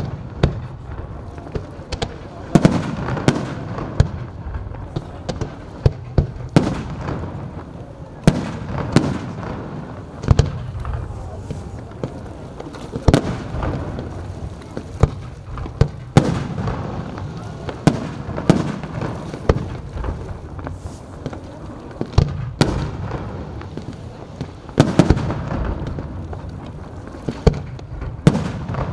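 Fireworks display: aerial shells bursting with dozens of sharp bangs, coming irregularly and at times in quick clusters, over a steady low rumble between the bangs.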